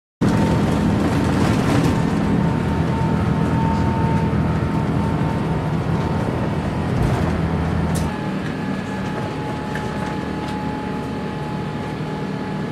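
Airbus A350 cabin noise during takeoff: a loud, steady roar of the jet engines and rushing air with a low hum, which eases to a quieter, steady cabin rush about eight seconds in.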